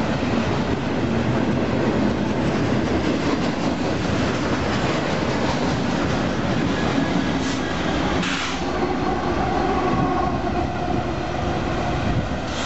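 Double-stack intermodal freight train rolling past close by: steady rumble of well-car wheels on the rails with rhythmic clickety-clack over the rail joints.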